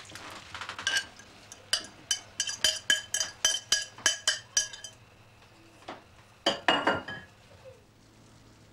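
A spoon clinking against a ceramic bowl: a quick run of ringing strikes, about three or four a second, for several seconds, then a short burst of a few more near the middle of the clip.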